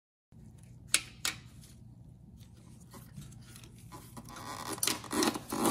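Handling noises: two sharp clicks about a second in, then a rustling, scraping stretch near the end as wire leads and plastic connectors are pulled and moved about on a generator head's end cover.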